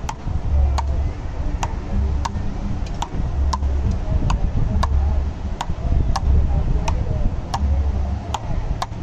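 Frescobol rally: the rubber ball cracks off the paddles in a steady back-and-forth, about three sharp hits every two seconds.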